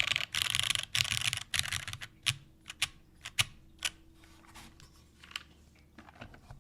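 Custom mechanical keyboard with lubed Cherry MX Black linear switches, a full aluminium plate and GMK keycaps being typed on: fast runs of keystrokes for about two seconds, then single keystrokes spaced apart, with a few more near the end.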